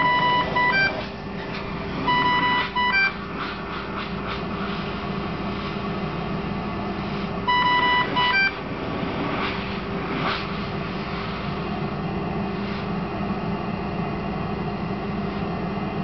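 Dräger Savina ventilator alarm: three short beep sequences of several tones, stepping in pitch at the end, at the start, about two seconds in and about seven and a half seconds in, over the steady hum of the ventilator's turbine blower. The alarms signal low airway pressure, high tidal volume and a high breathing frequency.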